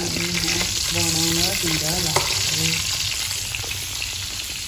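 Sausages sizzling in oil in a frying pan while they are turned with a spatula, a steady hiss, with one sharp click about two seconds in.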